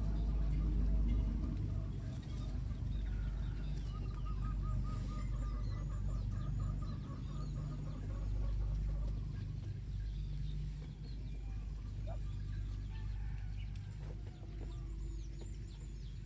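Ducks calling, with a rapid run of repeated quacks about four seconds in. Small birds chirp high above, over a steady low rumble.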